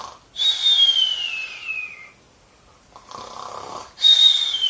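Cartoon-style snoring made with the voice, twice: each a rasping breath in, then a whistled breath out that slides down in pitch.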